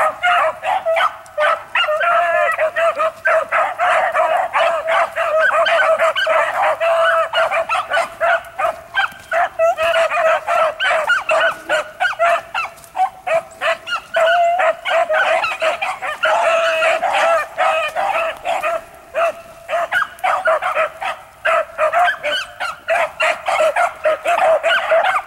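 A pack of beagles baying and barking without a break, many voices overlapping in quick cries: the hounds giving tongue as they run a rabbit.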